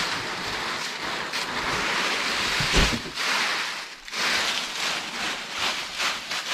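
Dry, brittle flakes rustling and crackling as they pour out of a large woven plastic sack and are stirred on a heap, with a single thump about three seconds in.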